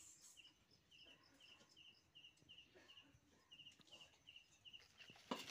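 Faint chirping of a cricket: short chirps of two or three quick pulses, repeating a little more than twice a second, over near silence. A soft knock near the end.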